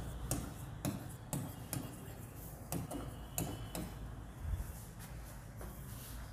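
A marker writing on a writing board: irregular sharp taps and short rubbing strokes, about two a second.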